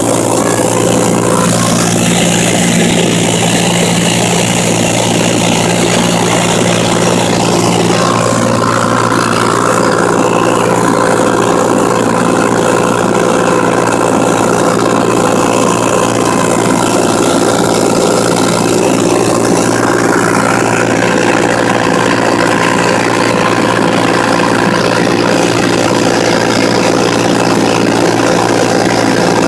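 Cessna 182T's Lycoming six-cylinder piston engine and propeller droning steadily in flight, heard inside the cabin.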